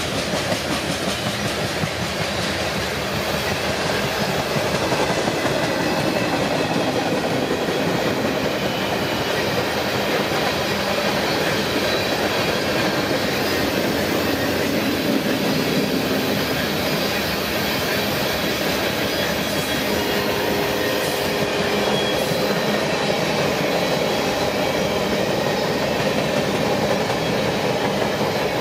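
Cars of a mixed freight train rolling past: steady noise of steel wheels on rail with clicking over the rail joints and faint squealing tones now and then.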